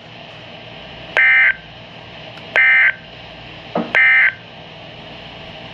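NOAA Weather Radio's Emergency Alert System end-of-message signal: three short bursts of SAME digital data tones, each about a third of a second and about a second and a half apart, marking the end of the alert. Under them runs the radio's steady static hiss.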